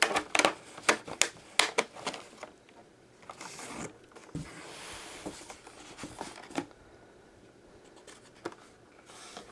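Hands handling a small cardboard model-train box and its rubber band: a quick run of clicks and taps, then a soft rustle of cardboard and packing, then only faint handling.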